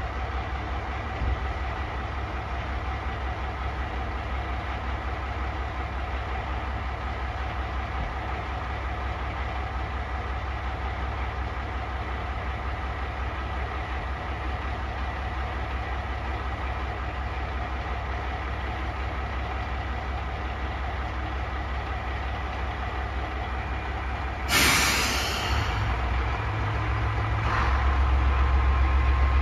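JR Shikoku 1550-series diesel railcar idling at a station platform with a steady hum. About 25 s in, a sharp hiss of air sounds as the brakes release, and then the engine speeds up and gets louder as the railcar pulls away.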